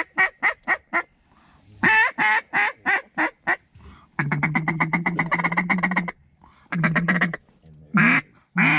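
Duck call blown in a mallard hen's voice: a run of loud, evenly spaced quacks, then a fast chattering feed call lasting about two seconds from around four seconds in, then a few separate quacks, the last ones longer and drawn out.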